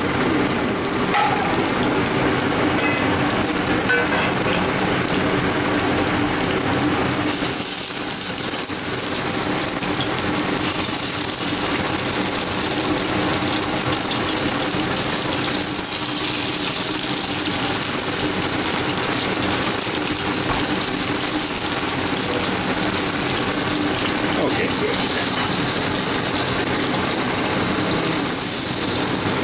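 Paprika-marinated chicken pieces and scallops shallow-frying in hot oil in steel pans on a gas range: a steady sizzle that grows stronger about seven seconds in.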